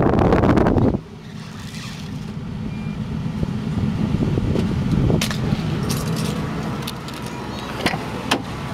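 A loud rushing noise cuts off suddenly about a second in, leaving the steady low hum of the Ford Excursion's engine running, heard from inside the cabin. A few sharp clicks come near the end.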